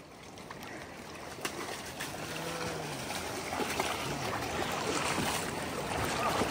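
Fast-flowing river water rushing over the rocks along the bank, a steady noise that grows gradually louder. A faint short call is heard about two seconds in.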